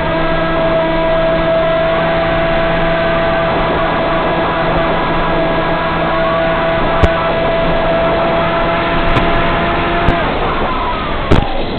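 Electric motor and propeller of a Z84 flying wing in flight, a steady drone over wind rush; about ten seconds in the pitch sags and the drone breaks off, followed by a couple of sharp clicks.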